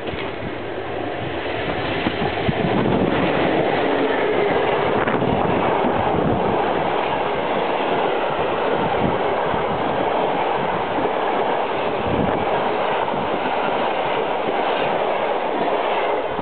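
An EU07 electric locomotive and its train of passenger coaches passing close by. The noise builds over the first two seconds as the train arrives, then settles into a steady rumble of wheels on the rails with a few sharp clicks.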